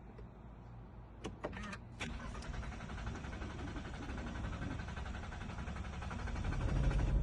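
A FAW car's starter motor cranking the engine: a few clicks, then about five seconds of steady, rhythmic cranking that grows louder near the end. The long crank fits the hard-starting fault.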